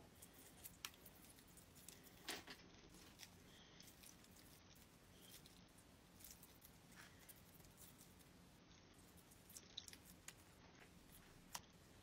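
Faint scattered crackles and clicks, with a few louder ticks, as fingers peel the edge of a rhinestone-covered special-effects mask away from the skin.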